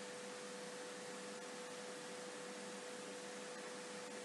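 Low, steady background hiss with a faint constant hum: the recording's own noise floor, with no other sound.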